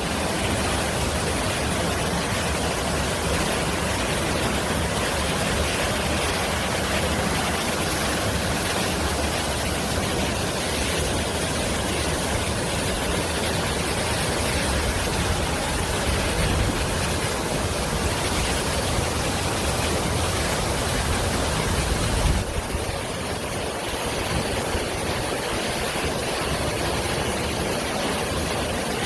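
Rushing water: a steady, loud, even noise across the whole range. About 22 seconds in there is a brief low bump, and after it the sound is slightly duller.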